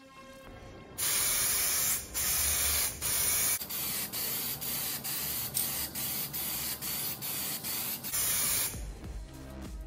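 Aerosol spray can of clear varnish hissing in bursts: a few longer sprays of about a second each, then a run of short bursts about two a second, and one last longer spray near the end.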